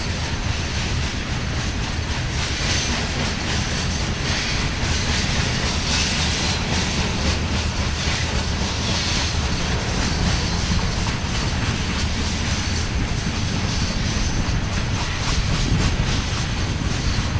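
Union Pacific coal train's hopper cars rolling past on a curve: a steady rumble of steel wheels on rail with clickety-clack from the rail joints.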